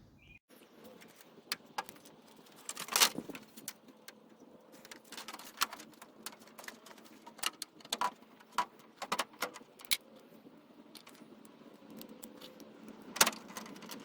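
Keys jingling and scattered sharp clicks, loudest about three seconds in and again near the end, as the new headlights are switched on for a test.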